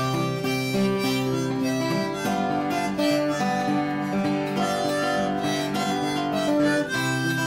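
Instrumental break in a folk ballad: acoustic guitar strumming under a harmonica playing held melody notes.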